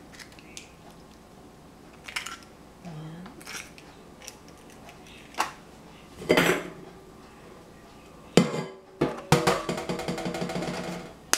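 Kitchen clatter of bowls and utensils while eggs are cracked and separated for their yolks: scattered sharp taps and knocks, a louder clatter about six seconds in, then a couple of seconds of rapid ringing rattling near the end, cut off by a sharp click.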